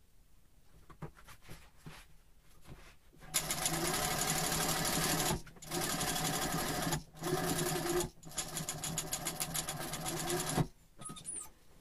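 Industrial sewing machine stitching a seam along a denim jeans pocket bag. After a few faint clicks it starts about three seconds in, runs in several stretches with brief pauses between them, and stops near the end.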